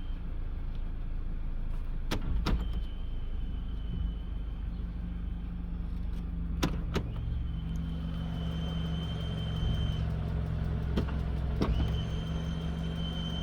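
Car engine idling in Park or Neutral with a thin, high-pitched squeak that comes and goes three times, which the owner likens to a squealing drive belt. A few sharp clicks sound in between.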